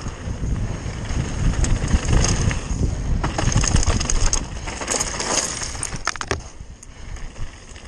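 Mountain bike tyres rolling fast over loose gravel and stone, a low rumble with wind on the microphone and stone chips and bike parts clattering throughout. The clatter is busiest midway and drops off to a quieter roll near the end.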